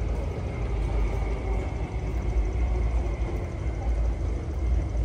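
Metro train pulling into the station behind platform screen doors: a steady low rumble with a thin, steady high whine over it.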